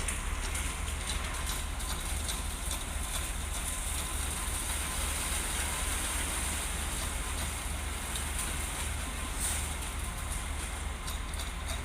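Construction machinery running steadily at a concrete pour, a continuous low engine-like rumble with a broad noisy hiss over it and a few faint clicks.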